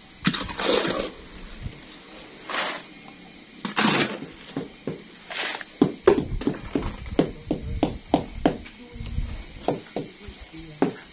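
Voices talking in short bursts, then from about six seconds in a quick, uneven run of sharp knocks, roughly three a second.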